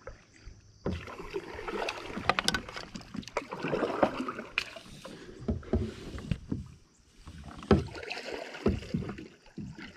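Irregular knocking, scraping and rustling as gear is handled on the deck of a plastic fishing kayak, with sharp clicks mixed in. It starts about a second in and dips briefly near seven seconds.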